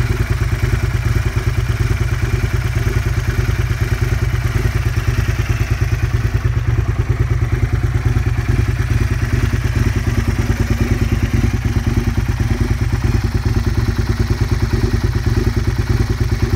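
2004 Aprilia RSV Tuono's 998 cc V-twin idling steadily through an aftermarket Carbon Can Co titanium silencer, a fast, even beat with no revs.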